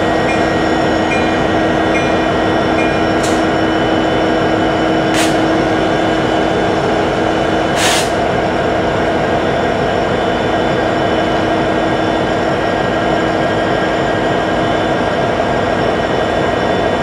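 CN EMD SD75I diesel-electric locomotives, with 16-cylinder two-stroke engines, running steadily as the train creeps slowly forward. A few short sharp bursts of noise cut through, about 3, 5 and 8 seconds in.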